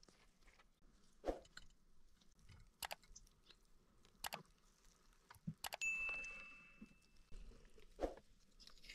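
Scattered sharp clicks and taps from food being handled with utensils, and about six seconds in a metal utensil clinks and rings for about a second and a half.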